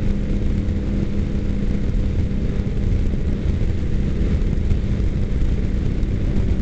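Suzuki Katana 600 sport bike's engine droning at a steady freeway cruise, heard through a helmet-mounted camera, with heavy wind rush buffeting the microphone. The pitch holds steady throughout, with no shifting or revving.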